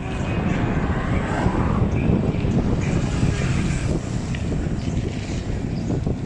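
Steady wind rushing over the microphone, mixed with road and engine noise from a moving motorcycle.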